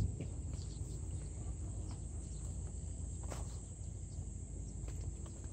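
Steady high-pitched chirring of insects, with a low rumble and a few faint footsteps on dried mud.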